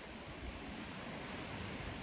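Strong wind blowing through trees: a steady rushing hiss of moving leaves and branches, with some low rumble of wind on the microphone.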